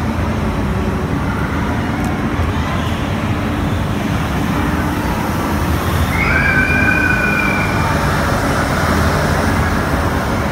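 Steady, dense din of a busy indoor amusement park. Just past the middle, a two-pitched electronic tone is held for about a second and a half.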